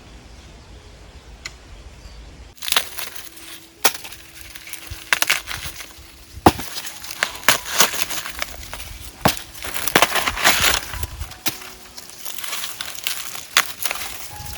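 Dry plant material rustling and crackling, with sharp cracks of stalks or ears snapping, starting a few seconds in and going on irregularly: typical of corn being harvested by hand.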